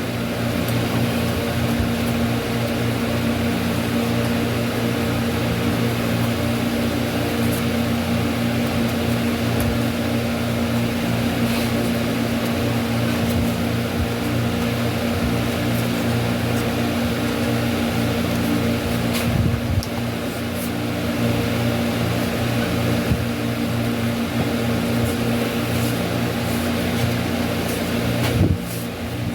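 A steady machine hum with a constant low pitch and a few faint clicks, dipping briefly near the end.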